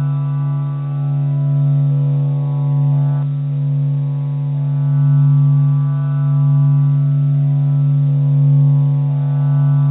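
A steady, low droning tone held on one pitch with a stack of overtones, swelling gently in loudness. Its upper overtones thin out about three seconds in. It is a meditation drone billed as the sound of the sun.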